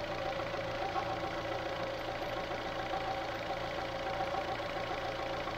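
Fiat Strada pickup's engine idling steadily while it is still warming up.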